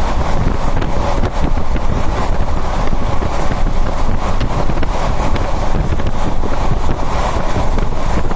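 Moving train: a steady rumble from the wheels on the rails, with wind rushing over the microphone and faint irregular ticks and rattles.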